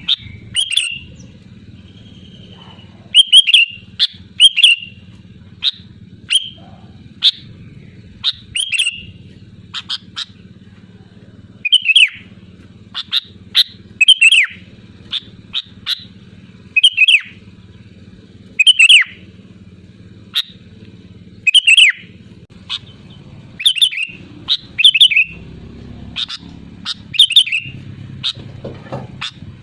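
Sooty-headed bulbul (kutilang) calling loudly and repeatedly: short, sharp falling notes, singly or in quick twos and threes, every second or two, over a faint low hum.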